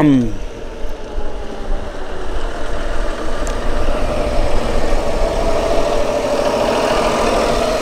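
Tractor engine running close by as it works its way slowly past. Its note falls right at the start, then runs on as a rumble that grows louder again from about the middle.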